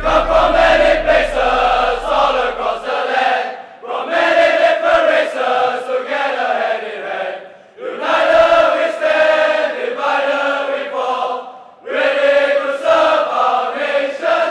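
A platoon of men chanting a marching song in unison, sung in phrases about four seconds long with brief gaps between.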